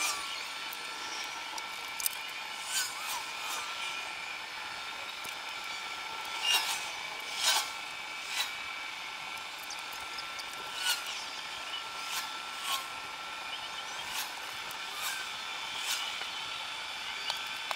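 Wooden airframe parts being worked by hand: wood rubbing and scraping, with scattered light knocks and taps at irregular intervals over a faint steady hum.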